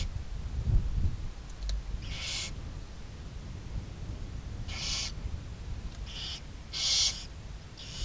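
Barn owls in a nest box giving short, rasping, hissing screech calls, about five of them spaced a second or so apart, the loudest near the end, over a low rumble.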